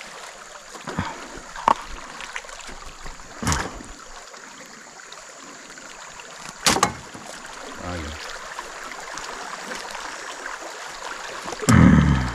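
Steady wash of river water around an aluminium fishing boat, with a few sharp knocks, about three and a half and six and a half seconds in. A louder, deeper thump comes near the end.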